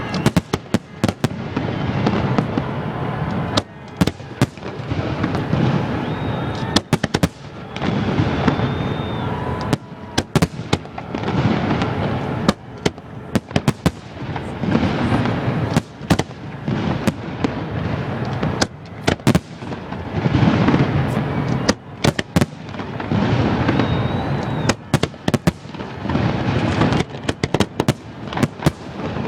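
New Year's fireworks display bursting close overhead: a continuous barrage of sharp cracks and bangs over deep rolling booms that swell every couple of seconds.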